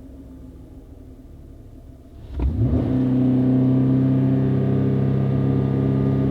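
Chevy Colorado ZR2's 3.6L V6 running through a Flowmaster FlowFX cat-back exhaust with a straight-through muffler: a quiet idle, then revved up quickly about two seconds in and held at a steady higher rpm.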